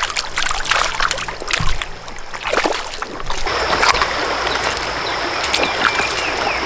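Creek water running over shallow riffles, with scattered splashes in the first three seconds, then a steady rush of water.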